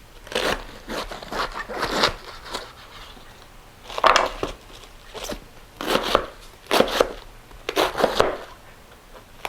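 Kitchen knife cutting through a raw head of cabbage, a series of irregular crunchy cuts as the core is taken out and the leaves are sliced.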